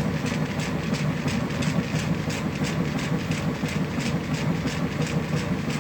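Washing machine running with a large load: a steady low hum with a regular rattling tick on top, about four times a second.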